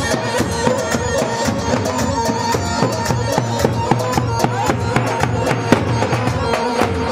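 Halay folk dance music played by a band, with a steady fast drum beat under a held melody line.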